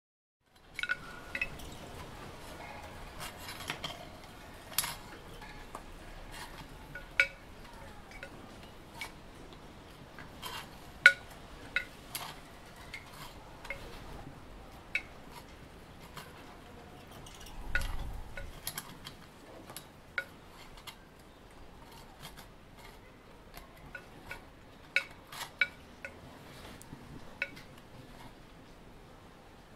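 Sharp clinks and clicks of hard objects knocking together at irregular intervals over a faint steady background, with a dull low thump about 18 seconds in.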